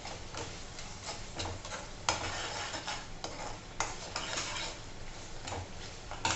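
Steel slotted spatula scraping and clinking against a steel kadhai as a thick masala is stirred, in irregular strokes a few per second, over a faint sizzle of the masala cooking in oil.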